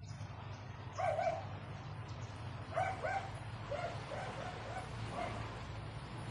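Short, high-pitched animal calls: one about a second in, two close together near three seconds, then a quick run of about five.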